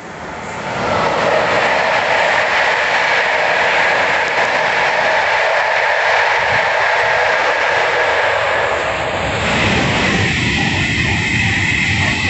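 Electric passenger train passing at speed on the main line, a steady loud rush of wheels on rail that builds over the first second. About ten seconds in the sound turns deeper, with a steady high whine over it.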